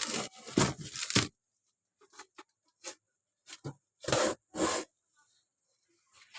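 Items being handled and set into a refrigerator: a series of short knocks and rustles, a dense run at first and two louder ones about four seconds in.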